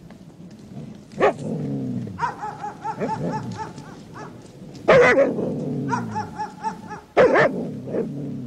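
A dog barking loudly three times, about a second in, at five seconds and just after seven seconds, each bark trailing off into a lower, falling, drawn-out sound.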